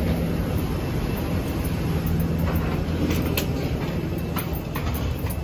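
Steady low hum of aircraft and jet-bridge machinery at an airliner's door. From about two and a half seconds in, scattered clicks and knocks of footsteps and rolling suitcases on the jet bridge floor.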